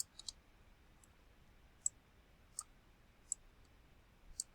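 Computer mouse clicking: a handful of faint, sharp single clicks at irregular intervals, as a CAD model is worked on screen.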